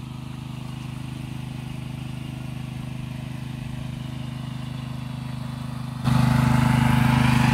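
Engine-driven water pump running steadily with an even hum. About six seconds in, it suddenly gets louder and a hiss joins it.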